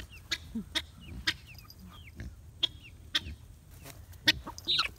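Chickens clucking and giving short chirps as they feed, with scattered sharp clicks among the calls.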